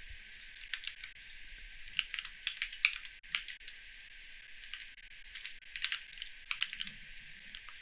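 Computer keyboard typing: irregular clusters of short keystrokes with small gaps between them.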